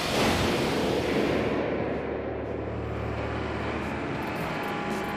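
Water splashing and churning around a dredger's grab bucket, loudest in the first second or so, then settling into a steady low machinery rumble.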